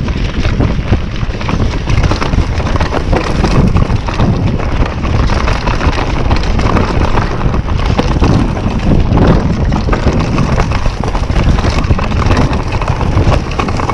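Wind buffeting the helmet- or chest-mounted GoPro's microphone as a YT Capra mountain bike rides fast down a dirt forest trail, its tyres running over soil and leaf litter. Frequent rattles and knocks come from the bike as it goes over bumps.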